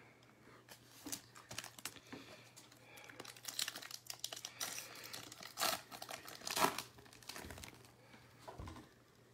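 Baseball card pack being torn open, its plastic wrapper crinkling and crackling in irregular bursts, loudest about halfway through, then the cards handled.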